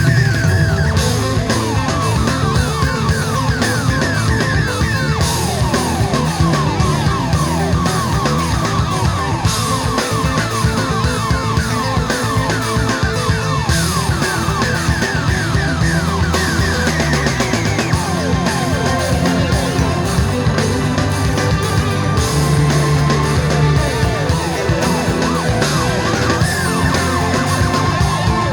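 Rock-style music with drums and guitar, with many quick falling runs, played loud through the JVC FS-S77 mini component system's speakers.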